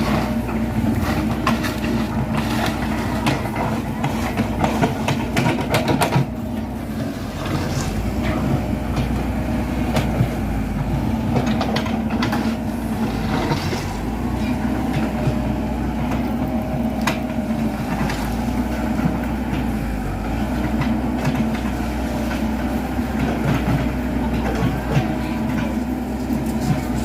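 Komatsu PC78 hydraulic excavator's diesel engine running steadily at working speed, with frequent metallic clanks and knocks from the machine at work. The clanks are busiest in the first half and sparser later on.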